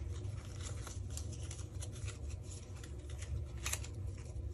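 Plastic scrapbook tags being handled: scattered light clicks and rustles, with a sharper click about three and a half seconds in, over a steady low hum.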